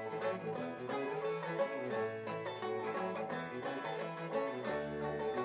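Acoustic folk band playing an instrumental break, with plucked banjo notes over guitar and walking bass notes.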